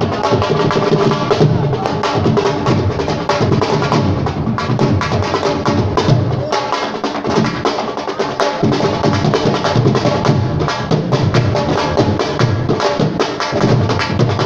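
Live drumming: a fast, unbroken stream of drum strokes, loud throughout, with a brief thinning of the low drum strokes about seven seconds in.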